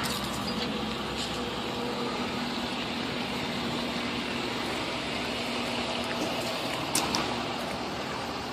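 Tow truck's engine idling with a steady, even hum. A couple of short clicks come about seven seconds in.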